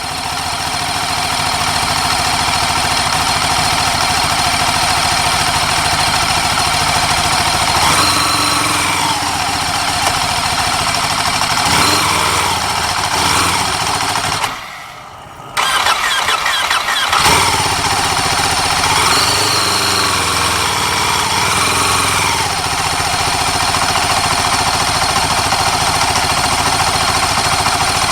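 Racing motorcycle engine running loudly, revving up and back down several times. About halfway through the sound drops away for about a second, then cuts back in abruptly.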